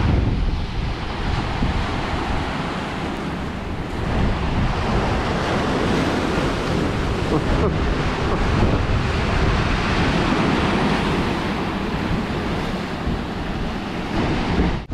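Strong wind buffeting the microphone over breaking surf, a steady loud rush heaviest in the lows.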